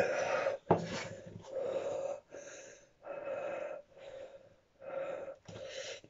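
A man's heavy, wheezing breaths in and out through the mouth, quick and repeated, about eight in a row, as he breathes through the burn of a superhot chili pod in his mouth.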